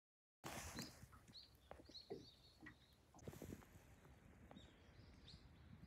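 Faint outdoor ambience: small birds give short, high chirps several times over a low, steady background rumble, with a few light clicks and knocks.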